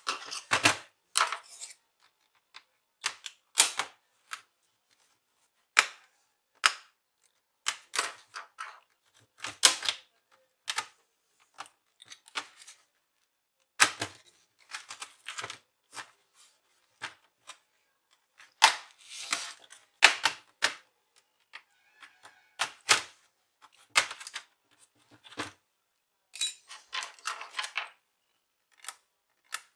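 Irregular sharp clicks and short rattles of small screws being taken out of an HP 15 series laptop: screwdriver tip, loose screws and the plastic case knocking.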